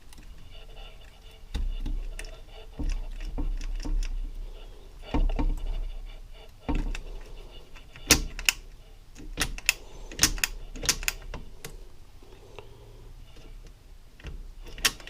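Metal clicking and clanking as a shift lever is fitted onto the shifter shaft of a Yamaha YFZ450R engine and worked by hand, with a run of sharp clicks about halfway through and one more near the end.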